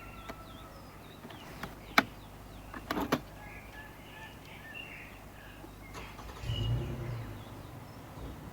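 Sharp clicks and knocks, the loudest about two seconds in and a quick cluster about a second later, then a low thump near the end. Faint, small bird chirps sound in the background.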